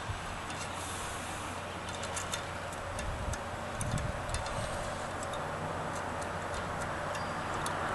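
Small, sharp metallic clicks and ticks, scattered and irregular, as a slim tool probes inside a compressed valve spring retainer on a DOHC 2.0 cylinder head to pick out a valve keeper. A few soft low knocks come around the middle, over a steady background hiss.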